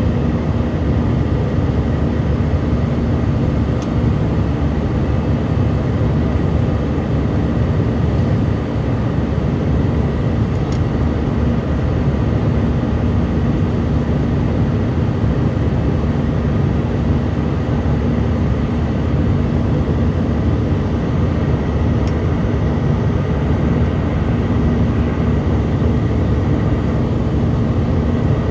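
Steady cabin noise inside an Airbus A319-111 seated by the wing during the climb-out: the even rush of air and the drone of its CFM56 engines, with a steady low hum under it.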